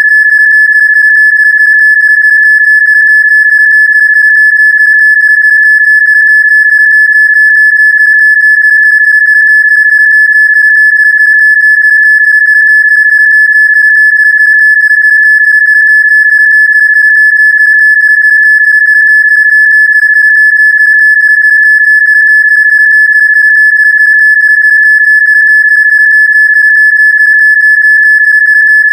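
Electronically generated Rife frequency tone: one high, steady pitch held without change, with faint higher overtones.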